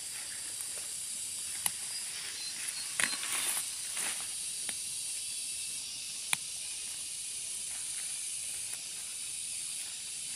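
Malabar spinach stems and leaves rustling and snapping as the plants are pulled up by hand: a handful of short, sharp crackles over a steady high hiss.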